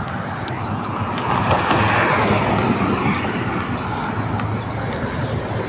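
Steady rushing outdoor noise that swells about two seconds in and then eases, with a low hum underneath.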